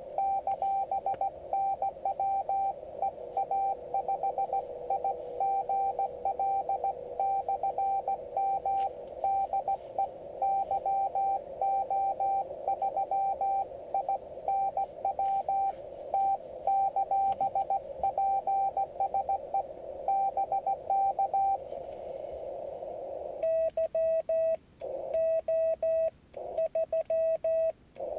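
Morse code on a Yaesu FT-817D transceiver's speaker: a keyed tone in dots and dashes over a band of hiss from the narrow CW filter, for about twenty seconds, as an incoming signal is received. After a short lull, a slightly lower, cleaner keyed tone with silent gaps between characters, the rig's sidetone as the operator sends his reply with a paddle.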